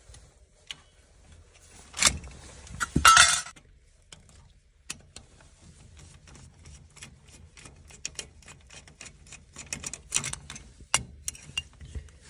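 Metal cover of a three-port motorised zone valve's actuator head being pulled off, two short scraping clatters about two and three seconds in, then a long run of small metallic clicks and ticks as a screwdriver works the screws holding the head. The head is coming off because it has failed.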